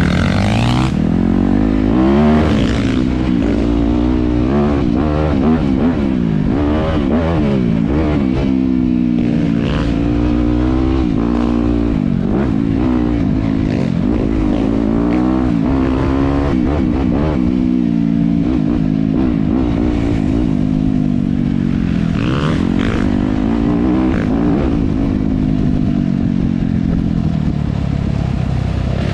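Dirt bike engine being ridden on a trail, its revs rising and falling again and again with throttle and gear changes.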